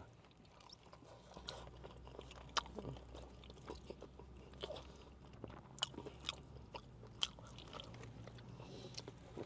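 Faint close-up chewing and mouth sounds of someone eating mac and cheese, with scattered short clicks from a plastic fork in a takeout bowl. A low steady hum sits underneath, inside a car cabin.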